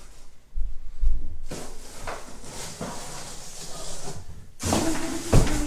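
Artificial Christmas tree section being handled in and out of its cardboard box: stiff plastic branches rustling and scraping against cardboard. There are dull thumps about half a second and a second in, and a louder rustle with a thud near the end.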